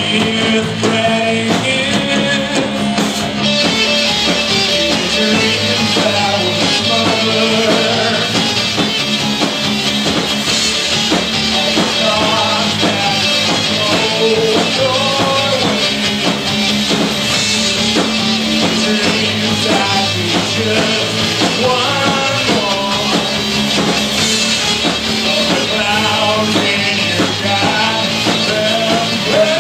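Rock band playing live: electric guitars over a drum kit, continuous and loud.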